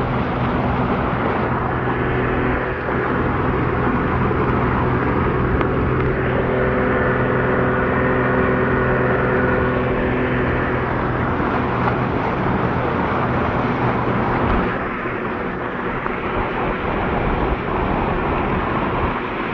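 Emergency vehicle's engine running steadily with a constant drone under a loud rushing noise as it drives through floodwater. The engine note drops away about three-quarters of the way through, leaving the rushing noise.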